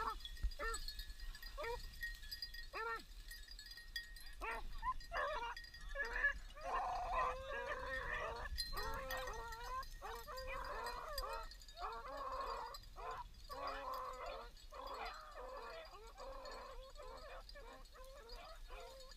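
Beagles baying while running a rabbit. At first single drawn-out bawls come about a second apart, then from about six seconds in several hounds give tongue at once in a near-continuous, overlapping chorus.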